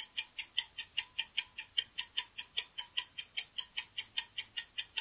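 Fast, even clock-like ticking, about five sharp, high ticks a second, a ticking sound effect laid over the edit.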